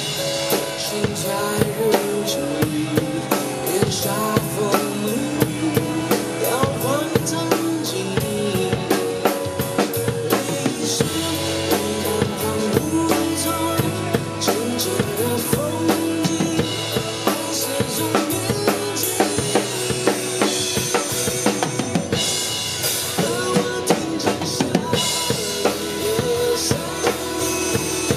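Acoustic drum kit played live, with bass drum, snare and cymbal hits, over a pop ballad backing track from a loudspeaker. This is an instrumental passage with no singing.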